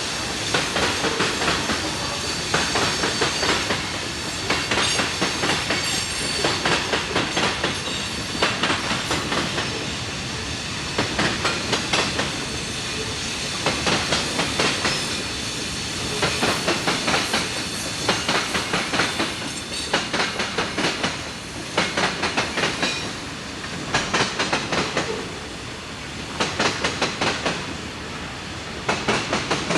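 Railroad cars rolling past, their wheels clicking over rail joints in quick clusters about every second and a half to two seconds, over a steady rolling rumble.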